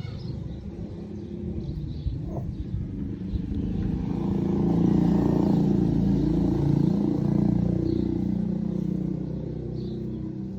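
A motor vehicle's engine passing by: it grows louder over the first half and then fades.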